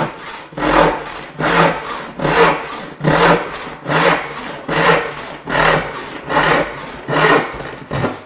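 Western hand crosscut saw cutting through a radiata pine board in steady strokes, a little more than one a second, lightened as the cut nears the end so the back edge doesn't chip out. The sawing stops abruptly near the end as the board is cut through.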